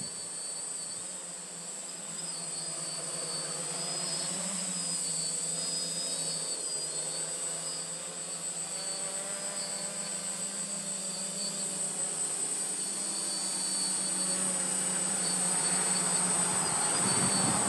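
Quadcopter's brushless motors and propellers buzzing steadily in hover, with a high whine over a low propeller drone; the buzz grows louder and fuller near the end as it comes closer.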